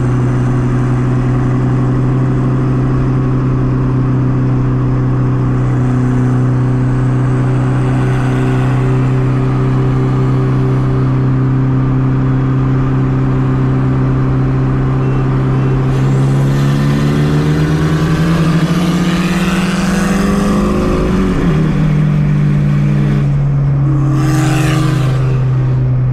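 Car engine heard from inside the cabin while driving: a steady drone at constant revs, then rising in pitch as it accelerates, dropping suddenly and rising briefly again. A short hiss comes near the end.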